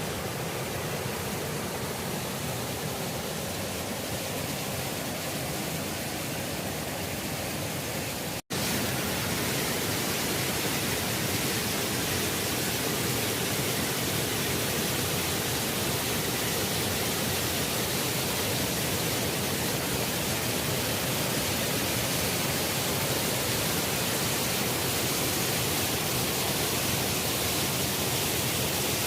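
Steady rush of falling water from a river waterfall, a dense hiss across all pitches, broken by a split-second dropout about eight seconds in, after which it is slightly louder.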